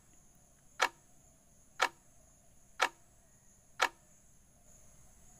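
Countdown-timer clock-tick sound effect: four sharp ticks, one a second, stopping about four seconds in.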